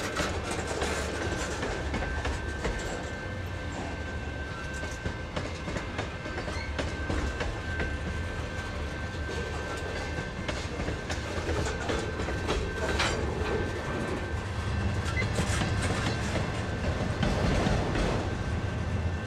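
Freight cars (loaded tank cars and an autorack) rolling past close by: a steady low rumble of steel wheels on rail with irregular clicks over the rail joints, and a faint steady high ringing tone throughout.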